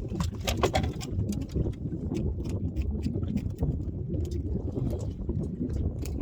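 Steady low rumble of wind and water on a fishing boat, with many sharp clicks and knocks scattered throughout.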